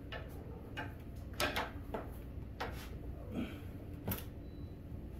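Irregular light clicks and knocks from a power cord and plug being handled and plugged in, over a low steady hum. The sharpest click comes about four seconds in.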